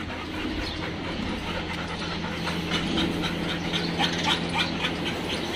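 Several dogs panting rapidly in quick, even breaths that grow clearer after the first couple of seconds, over a steady low hum.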